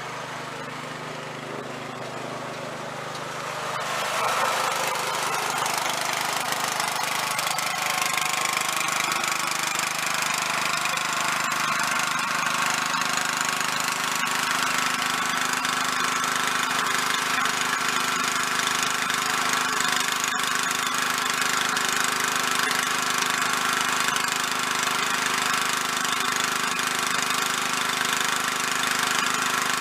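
Snapper rear-engine riding mower's engine running steadily. About four seconds in it gets louder, and a higher whine rises slowly over the next several seconds, then holds steady.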